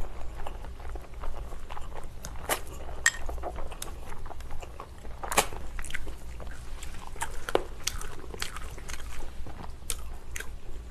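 Close-miked eating sounds: chewing and biting with irregular wet clicks and crunches, over a steady low hum.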